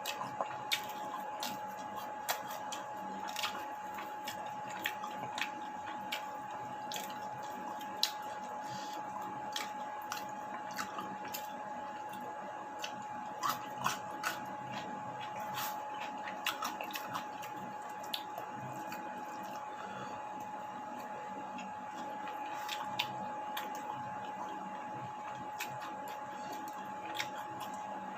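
Close-up eating sounds: a person biting and chewing a meal of chicken, tempe and tofu, with scattered wet squishes and small clicks, over a steady faint hum.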